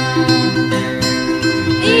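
Background music: a plucked string instrument playing a repeating figure of short notes over sustained tones.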